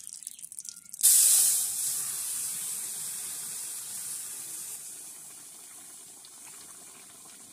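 Wet chopped potatoes and vegetables tipped into hot oil in a wok: a sudden loud sizzle about a second in that slowly dies away.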